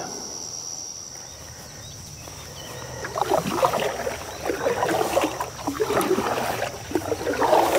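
Canoe being paddled: water splashing and trickling in irregular strokes, starting about three seconds in. Before that there is a steady high insect chirring that fades out.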